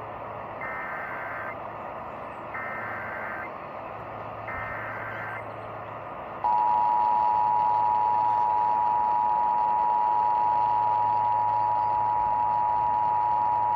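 Emergency Alert System Required Monthly Test over broadcast radio: three short screeching bursts of SAME digital header data about two seconds apart. About six and a half seconds in comes the louder, steady two-tone attention signal (853 and 960 Hz together), all over a constant hiss.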